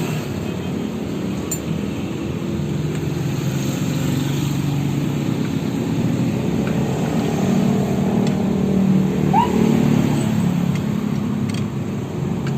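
A motor running steadily with a low hum whose pitch shifts slightly, getting a little louder about two thirds of the way in.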